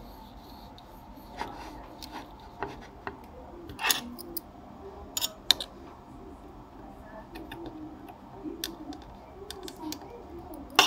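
Scattered small clicks and taps of fingers and a small metal tool handling a CD player's laser mechanism, with a few sharper clicks around four and five seconds in.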